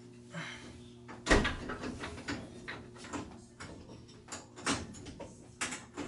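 Irregular metallic knocks and clicks of a hand tool working on the copper main water line and its valve, with one loud knock about a second in.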